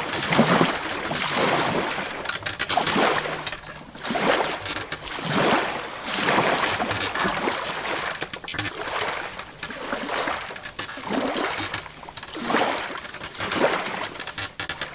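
Sea water sloshing and splashing against the hull of a wooden boat, in irregular surges every second or two.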